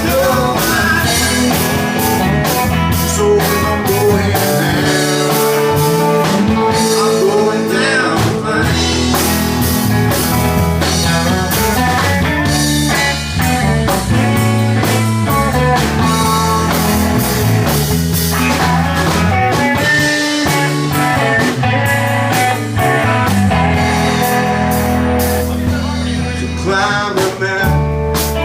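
Live blues-rock band jamming: a guitar plays a lead with bending notes over bass and a steady drum beat.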